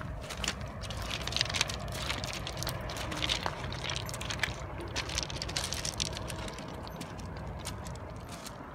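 Footsteps crunching on a pebble and shingle beach, a dense run of irregular crunches from several walkers, over a low steady rumble.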